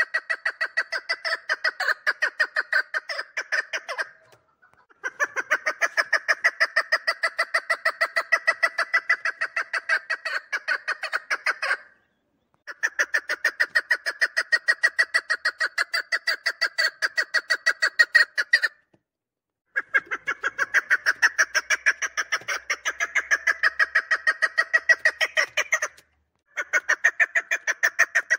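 Chukar partridge calling: long runs of rapid, evenly spaced chuk notes, each lasting several seconds and broken by four brief pauses.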